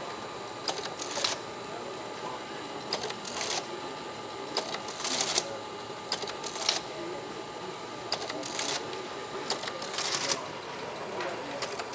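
Electromechanical teletype machine clattering in short bursts as a message is typed on its keyboard, each burst a quick run of mechanical clicks, coming about every second or two.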